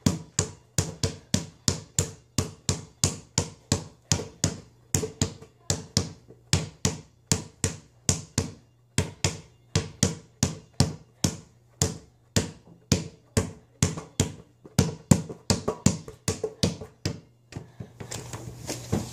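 Basketball dribbled on the floor, a steady run of bounces about three a second that stops near the end.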